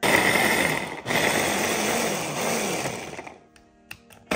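Small electric food chopper pulsed to mince onion and celery: the motor runs about a second, stops for an instant, runs again for about two more seconds and winds down, then another short pulse starts at the end.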